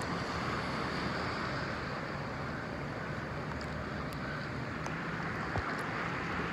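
Steady wash of choppy sea water lapping close around the phone, with wind buffeting its microphone.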